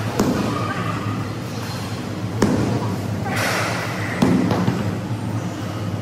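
Medicine ball thudding as it is thrown and caught: three dull impacts about two seconds apart, the last the loudest, over a steady low hum.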